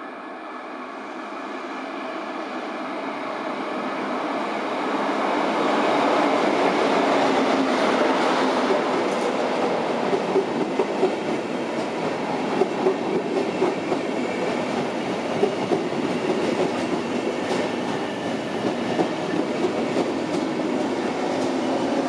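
Regional Express train of red n-Wagen coaches pulling into the station, growing steadily louder over the first few seconds as it approaches. Then the coaches roll past close by, with scattered sharp clacks from the wheels over rail joints.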